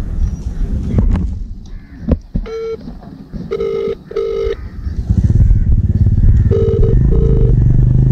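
A mobile phone's call tone: one short electronic beep, then two pairs of beeps about three seconds apart. Under it a motorcycle engine is running, much louder from about five seconds in.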